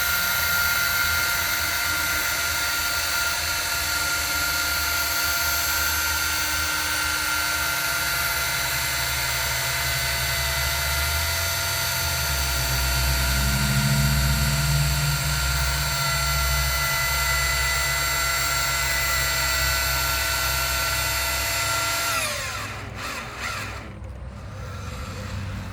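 Powered ground screw driver running steadily while it turns a helical steel ground screw into the ground, its motor and gearbox giving a constant whine with a low rumble that grows heavier midway under load. About 22 seconds in, the whine drops in pitch and winds down as the driver stops with the screw at depth.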